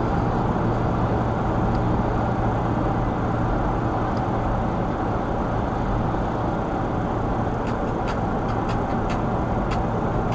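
Steady road and engine noise of a Toyota FJ Cruiser cruising at about 58 mph on a freeway, heard inside the cabin: an even rush of tyre noise over a low engine hum.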